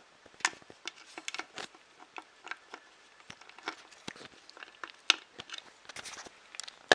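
Screwdriver tightening the clamp screw of a bolt-on bottle-cage bracket, making small irregular clicks and scrapes of metal and plastic, with one sharper click near the end.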